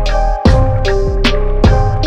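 Upbeat background music: ukulele and handclaps on a steady beat, with a clap about every 0.4 seconds.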